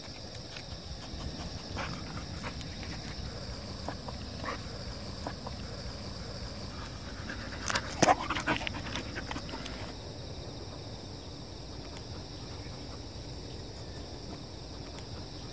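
Labrador Retriever panting, over a steady high drone of insects from the fields. About eight seconds in comes a short burst of sharp clicks and rattles, the loudest moment.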